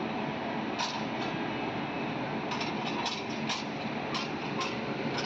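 Indian Railways WAG-9 electric locomotive running with a steady rushing hum. Over it comes a run of about eight sharp clicks, starting about a second in and coming faster toward the end.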